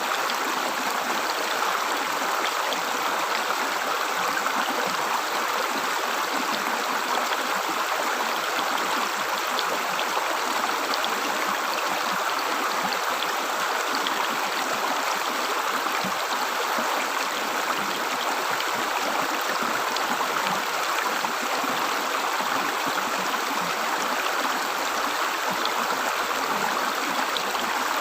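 Stream water flowing and gurgling steadily, an unbroken rush of water with small droplet splashes.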